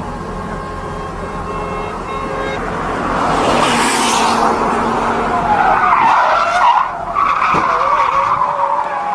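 Car engine running hard at high revs, then tyres screeching as a sedan drifts sideways, the squeal wavering up and down in pitch over the last few seconds.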